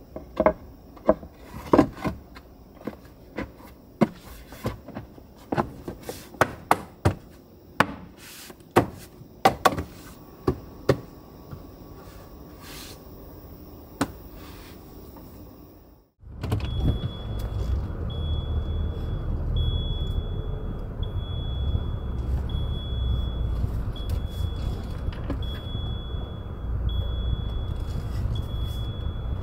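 Wooden boards knocking and clattering as they are set down onto a wooden bed frame in the back of a Renault Kangoo. After a cut about 16 seconds in, the car's engine runs with a steady low rumble while a high warning chime in the dashboard beeps about once a second.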